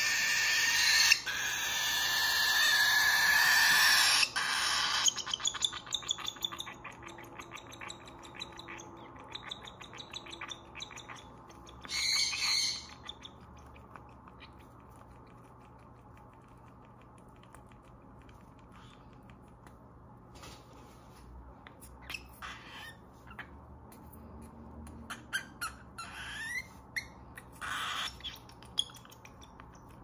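Baby cockatiel begging for food with a loud, raspy screech for the first four seconds or so. Then rapid clicking while it takes formula from a syringe, with another short screech about twelve seconds in and a few brief calls near the end.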